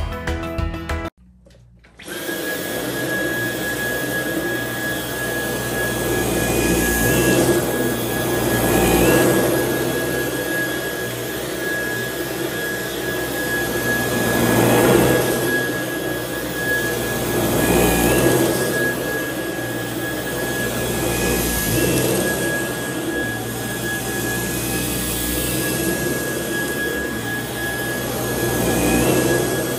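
Vacuum cleaner running on a carpet, a steady rushing noise with a constant high whine, swelling and easing every few seconds as it is pushed back and forth, pulling sand out of the pile.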